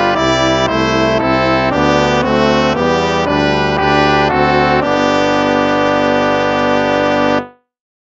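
Instrumental hymn music with a brass sound: a quick run of chords changing about three times a second, then a final chord held for about two and a half seconds that cuts off shortly before the end.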